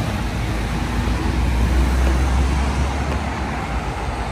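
Road traffic noise, with a low rumble that swells around the middle, as from a vehicle passing.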